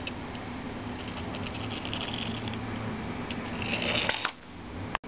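Small plastic pullback toy monster truck: its spring motor clicks rapidly as the truck is drawn back, then whirs briefly as it is released and runs across the mat, stopping abruptly about four seconds in.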